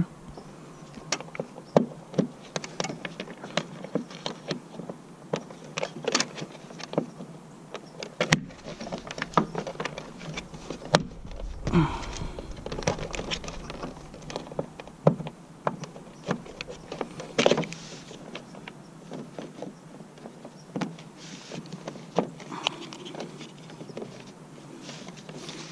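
Irregular small clicks, taps and rattles of hands handling boat wiring and fitting a trolling-motor plug connector into its socket.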